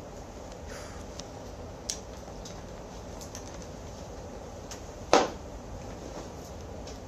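Room tone with a few faint clicks and one short, sharp knock about five seconds in.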